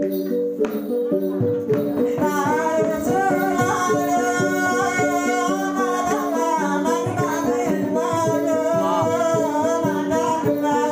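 Southwest Sumba gong ensemble playing a fast, evenly repeating pattern of ringing gong notes. A voice singing over it from about two seconds in.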